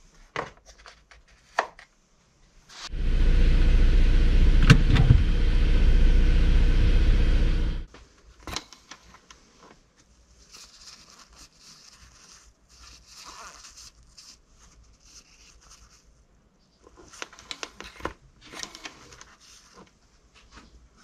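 Audi A3 8P's 2.0 FSI four-cylinder petrol engine running steadily at idle for about five seconds, then cutting off abruptly. It has just been started on fresh oil to check for leaks after an oil and filter change.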